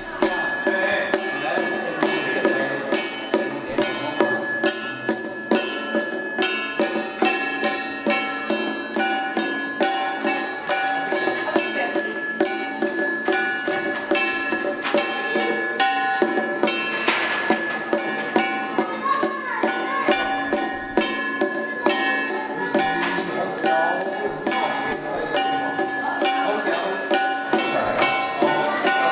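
A small metal bell rung rapidly and without pause, several strokes a second, over music.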